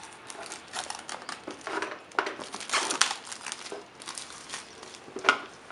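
Clear plastic wrapping being peeled and pulled off a phone box, crinkling and crackling irregularly, with a sharper crackle about three seconds in and another near the end.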